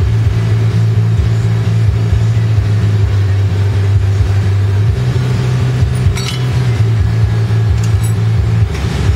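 Glassblower's bench-mounted torch burning steadily with a loud low rumble and hiss as borosilicate glass is heated in its flame, with a brief faint click about six seconds in.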